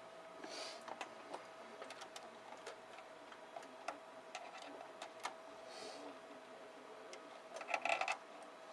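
Scattered small clicks and light rattles of server hardware being handled, with a quick cluster of louder clicks near the end, over a faint steady tone.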